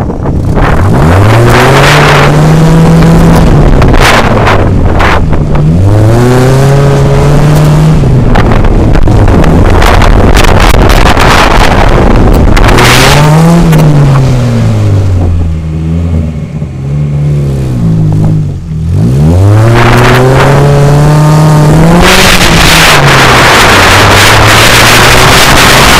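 Car engine being driven hard, revving up and falling back again and again as it accelerates, shifts and slows for corners. There is a short quieter stretch about two-thirds of the way through before it revs up again.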